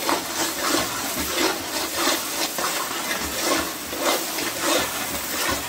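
Ginger-garlic paste, onion, mint and coriander sizzling in coconut oil and ghee in a large pot, stirred with a ladle in repeated strokes, about three a second. This is the frying stage that cooks off the paste's raw smell.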